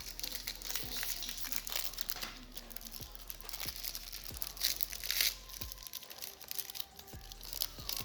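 Foil booster pack wrappers crinkling and tearing as Yu-Gi-Oh packs are opened and handled, with many small crackles and clicks.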